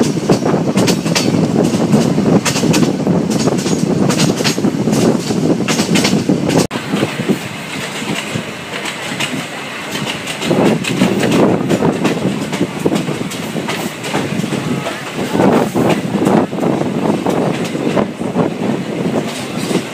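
Yangon Circular Railway coach running along the track, its wheels clattering over rail joints with a steady rumble. Heard from an open window of the moving coach. A sudden break comes about a third of the way in, and the running is somewhat quieter after it.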